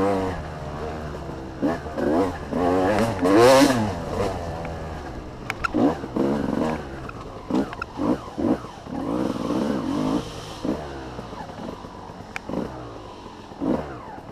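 Dirt bike engine revving up and down as the rider works the throttle over rough trail, with its strongest surge about three and a half seconds in and scattered knocks from the bike over the ground.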